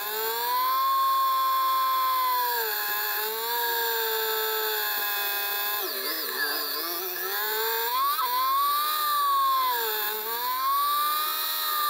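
Motorcycle engine running under way, its note rising and falling in pitch as the bike speeds up and slows, with a sharp drop about halfway through and a quick blip soon after. Heard through a GoPro mounted on the bike, with no bass.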